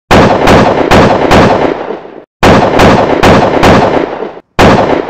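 Loud, sharp booming hits used as a title sound effect, one per letter as the title appears: four quick hits about half a second apart, a short gap, four more, then a single last hit, each leaving a reverberating tail.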